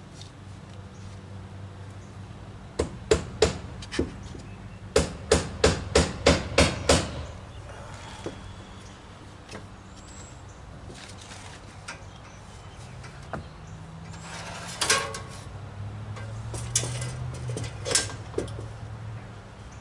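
Hammer blows on wood: a few strikes about three seconds in, then a quick run of about seven blows at roughly three a second, and a handful of single blows near the end.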